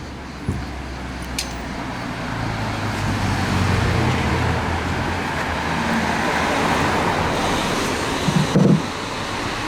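Steady road-traffic noise that swells over the first few seconds and then holds, with a short knock about half a second in and a brief low thump near the end.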